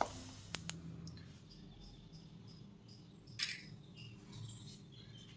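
Potli samosas deep-frying in ghee on a low flame, quiet: a few sharp pops in the first second, then a faint fizzle. Faint, evenly spaced high chirps run through, with a brief hiss about three and a half seconds in.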